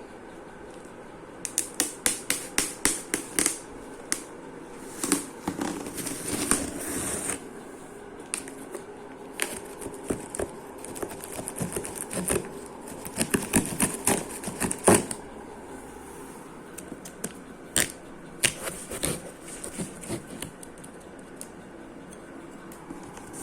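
Cardboard box and packaging being opened and handled by hand: bursts of sharp clicks, taps and scraping rustles, including a quick run of clicks about a second and a half in.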